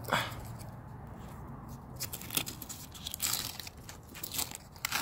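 Masking tape being peeled off freshly spray-painted truck bodywork: irregular tearing noises that start about two seconds in.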